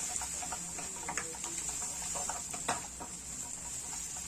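Scattered light clicks and taps of a utensil against a cooking pan, over a steady high hiss.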